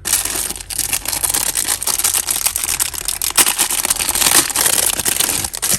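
A pile of costume jewellery clattering and rattling as it is handled, a dense run of small clicks that starts and stops abruptly.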